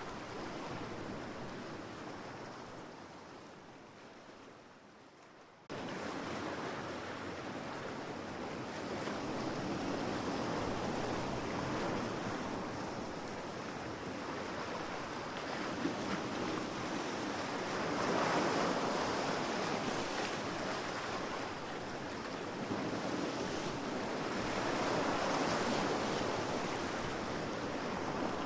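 Ocean surf on a beach, waves swelling and washing in and receding. The sound fades down over the first few seconds, then cuts back in abruptly about six seconds in, with the loudest waves breaking past the middle and again near the end.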